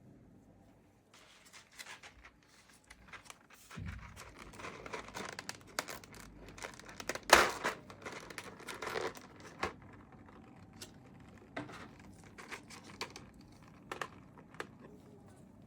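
Plastic packaging crinkling and rustling as it is handled, with one loud sharp click a little past the middle, then a few scattered clicks and taps.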